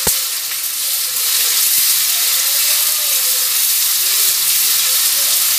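Garlic frying in hot refined oil in a steel kadai, a steady sizzling hiss as it is slowly stirred with a metal spoon. One sharp tap of the spoon against the pan right at the start.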